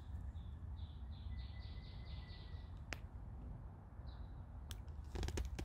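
A small bird calling: a run of about eight short, high notes, three or four a second, over the first two and a half seconds, then one more note near the end, against a low background rumble.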